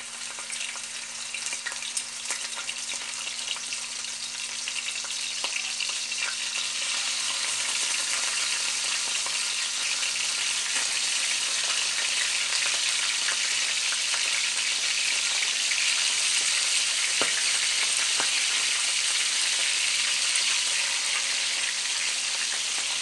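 Spicy chicken necks frying in hot oil in a small pan: a steady sizzle with scattered small pops. It grows louder over the first several seconds as more pieces go into the pan.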